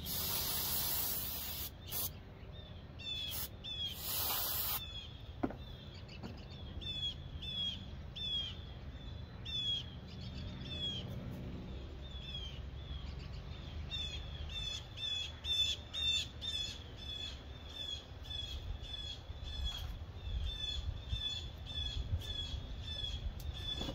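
Two sprays from an aerosol can of brake parts cleaner in the first five seconds, the first longer than the second. After them a bird chirps over and over, a quick high chirp a few times a second, growing busier toward the end, over a low outdoor rumble.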